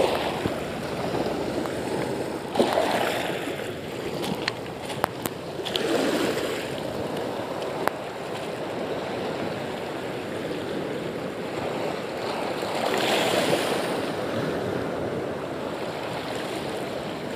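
Sea water washing and surging at the shoreline, with the noise swelling up three times as waves come in. A few faint sharp clicks come between about four and eight seconds in.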